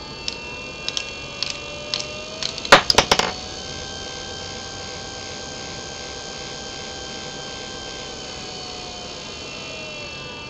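Dayton 12 V DC worm-drive gearmotor running on a PWM speed controller: its whine rises in pitch over the first few seconds as it is sped up, holds steady, and falls in pitch near the end as it is slowed. Over the first three seconds a screwdriver fitted in the output shaft clicks once a turn, the clicks quickening into a short loud clatter.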